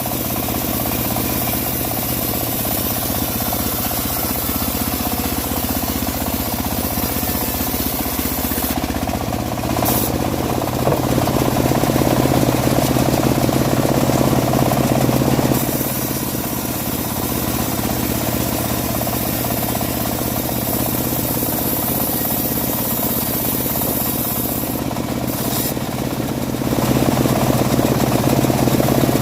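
Engine-driven home-built bandsaw mill running steadily while sawing dry teak, its tone shifting a few times as the work goes on.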